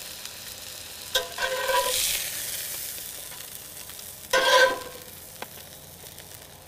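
Salmon sizzling in a hot skillet, with a metal utensil scraping and clanking against the ringing pan about a second in and again, loudest, around four and a half seconds in.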